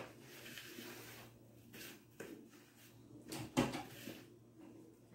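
Spatula stirring a thick flour cake mix in a glass mixing bowl: soft scraping with a few short knocks against the bowl, the loudest a little past three and a half seconds in.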